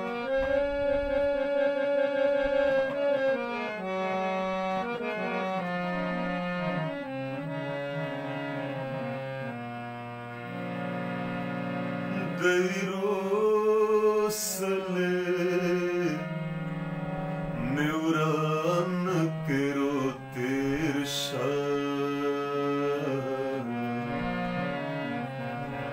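Harmonium playing a slow melodic introduction of held reed chords. About twelve seconds in, a man starts singing a wavering melody over it.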